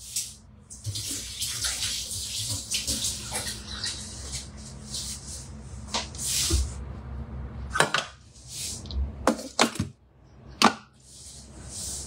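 Water running and splashing in short bursts, as at a kitchen tap. Near the end come a few sharp clicks and knocks as the lid is fitted onto the Thermomix bowl.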